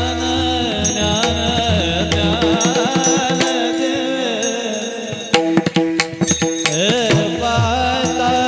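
Varkari kirtan music: voices singing a devotional melody over held accompanying notes, with mridang drum strokes. A quick run of sharp strokes comes a little past halfway.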